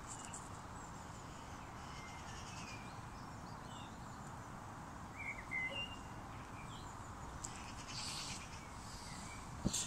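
Outdoor lakeside background: a steady low hiss with scattered short, high bird chirps through the middle, and a brief rustle near the end.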